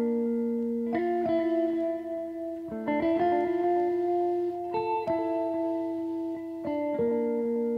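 Background music: a guitar playing slow plucked chords, with a new group of notes struck about every two seconds and left to ring.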